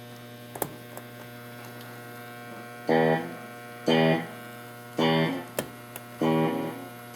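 Maestro Echoplex tape delay repeating a single pitched note, likely a guitar note, about once a second, five times at an even level, over a steady mains hum from the amplifier chain.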